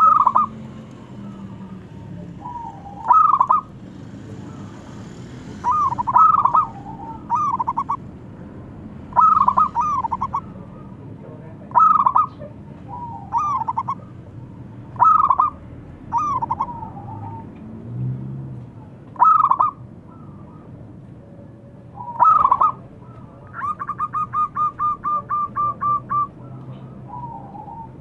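Zebra dove (perkutut) cooing: short bubbling call phrases repeated every two or three seconds. About two-thirds of the way through comes a fast, even run of a dozen or so notes at the same pitch.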